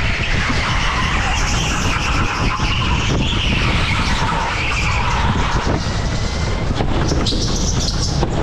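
Electric rental go-kart lapping an indoor track, its tyres squealing and skidding through the corners over a steady low rumble.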